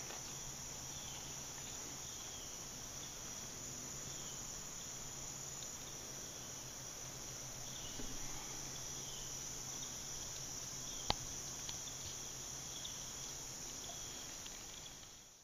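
Steady, high, continuous chorus of insects shrilling in the woods, with a faint low hum beneath. One sharp click comes about eleven seconds in, and the sound fades out at the end.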